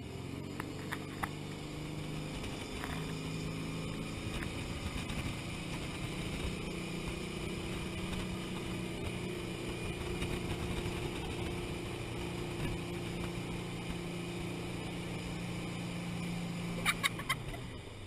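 Motorboat engine running under load while towing a skier: a steady drone that rises slightly in pitch at first and then holds, with water rushing beneath it.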